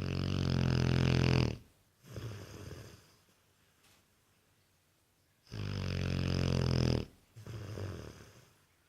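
Rhodesian Ridgeback snoring heavily, two snore cycles about five and a half seconds apart. Each cycle is a long, loud, droning snore of about a second and a half, followed by a shorter, quieter one.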